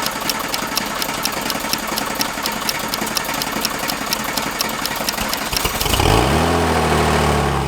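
Porsche 996 Turbo twin-turbo flat-six being cranked over by its starter with a rapid, even clicking for about six seconds. It then fires, its pitch swings up, and it settles into a steady fast idle.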